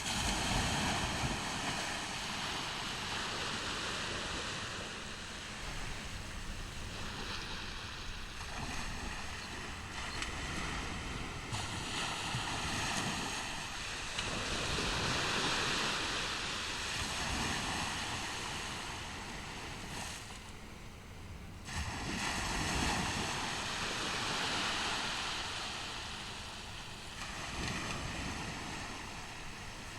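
Ocean surf on a beach: waves breaking and washing up the shore, the roar swelling and easing every few seconds.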